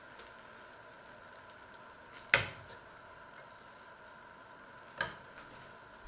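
A metal ladle clinks sharply twice against the dishes while food is served from a stainless steel pot, the first clink louder, each with a short ring, over a faint steady hiss and a few light taps.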